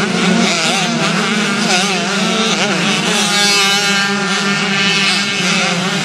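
Several vintage two-stroke motocross bikes revving hard, their engine notes rising and falling with the throttle. About halfway through, one engine holds a steadier note.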